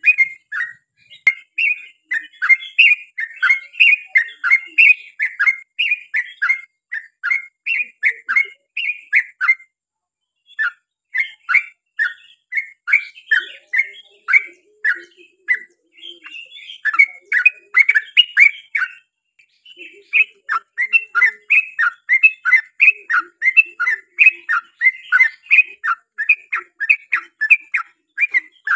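Yellow-vented bulbul (trucukan) singing a long, rapid run of short chirping notes, about three or four a second, breaking off briefly twice.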